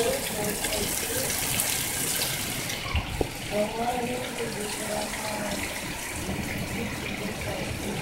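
Heavy rain pouring down in a steady, dense hiss, with a sharp knock about three seconds in.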